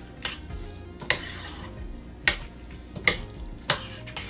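Utensil stirring thick, cheesy elbow macaroni in a stainless steel saucepan: a soft, wet squelching churn with about five sharp clinks as the utensil knocks against the pot.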